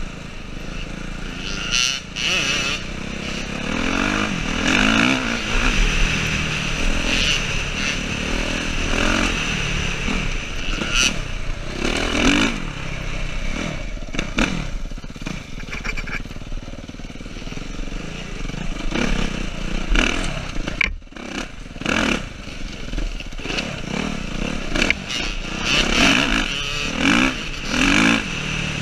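Suzuki RM-Z450 four-stroke single-cylinder dirt bike engine ridden hard, revving up and easing off again and again as it climbs through the gears, heard from the rider's helmet camera. The engine briefly drops off about two-thirds of the way through.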